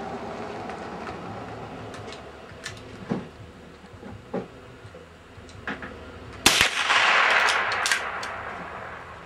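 Sharp cracks of .22 rimfire rifle shots: a few faint ones, then a much louder one about two-thirds of the way in, followed by a couple of seconds of rushing noise with a few more clicks.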